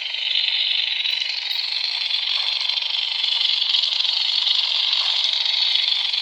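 Custom lightsaber's sound board playing its blade hum through a small 24 mm speaker: a steady, buzzy hum with no bass, held level.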